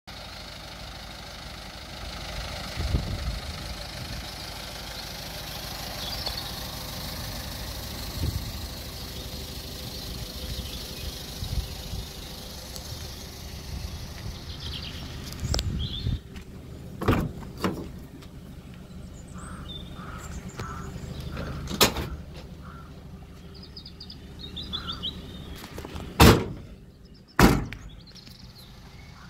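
Citroën Dispatch van's doors being handled: a series of sharp metal clunks in the second half, the two loudest near the end as a rear barn door is opened, over a steady outdoor hiss with birds chirping now and then.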